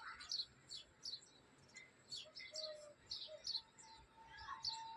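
Small birds chirping: a run of short, quick, falling chirps, several a second, with a few lower whistled notes and a longer held note near the end.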